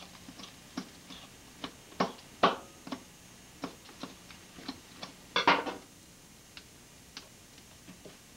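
Irregular taps and clicks from butchering a skinned muskrat on a wooden cutting board, hands and knife working the carcass against the board, with the loudest knocks about two seconds in and a short cluster a little past halfway.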